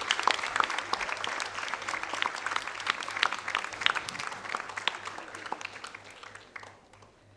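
An audience of schoolchildren clapping, dense applause that thins and dies away about six to seven seconds in.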